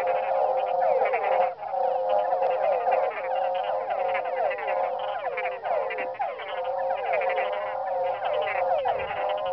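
A chorus of frogs and toads calling together: many overlapping short, falling croaks repeated several times a second in an unbroken stream.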